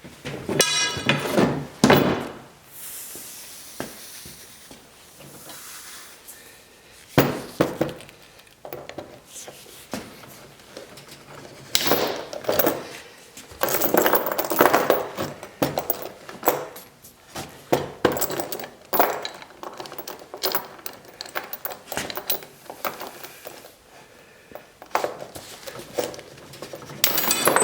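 Steel chain links clinking and clattering as the chain is handled, with irregular metal-on-metal rattles.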